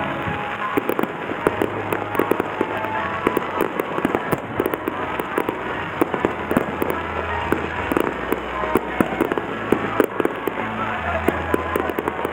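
Fireworks bursting overhead: a dense, irregular run of sharp pops and crackles from glittering star bursts, many reports a second with no let-up.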